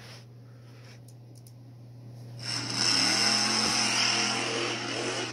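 A person imitating a monster truck engine with their mouth: a raspy, rumbling engine noise that starts about two and a half seconds in and runs for about three seconds.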